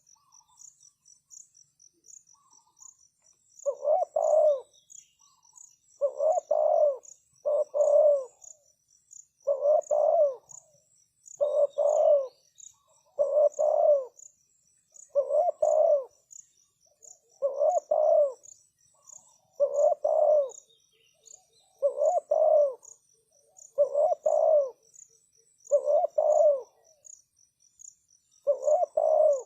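Spotted dove cooing its repeated phrase, about one phrase every two seconds after a short pause at the start: the call used to lure wild doves. A faint, even high-pitched chirping repeats behind it.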